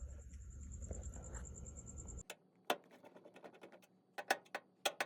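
Whirlpool electric dryer running with a low rumble and a steady high whine, which the repairer suspects comes from bad drum support rollers. The running cuts off abruptly about two seconds in. Scattered clicks and knocks follow, likely from handling the dryer cabinet.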